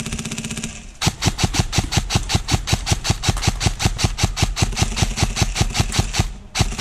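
Airsoft gun firing on full auto: a fast whirring burst ends within the first second, then after a short pause a long string of sharp shots at about nine a second runs on, with a brief break just before the end.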